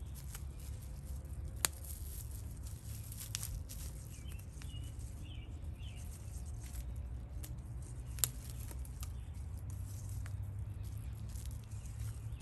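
Scattered small clicks and taps of hand work, with two sharp snaps, one a couple of seconds in and one past eight seconds, over a steady low rumble. Faint bird chirps come in around the middle.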